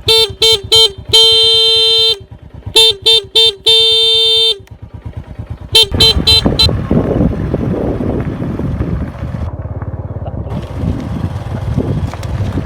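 Motorbike horn beeped in a calling pattern: a run of quick beeps then a long blast, twice over, and another run of quick beeps about six seconds in, over the motorbike's engine idling. It is the signal the farm uses to call its cattle in from the field. After the last beeps a rougher, steady mixed noise carries on.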